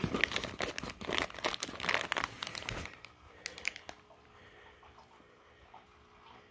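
Plastic fish shipping bags crinkling and crackling as they are handled in the box, dense for about three seconds, then a few light clicks.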